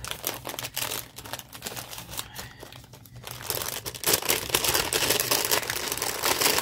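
Kraft paper envelope crinkling and rustling as it is handled and opened to get at a mini skein of yarn, growing louder about four seconds in.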